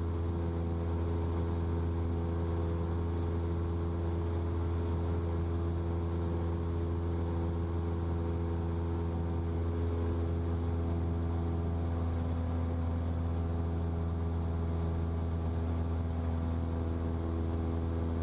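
Cessna's single piston engine and propeller running at a steady cruise setting, a constant drone with several steady tones heard from inside the cockpit.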